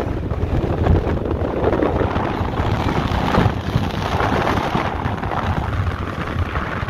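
Wind buffeting the camera microphone: a steady rushing noise with irregular low rumbling gusts.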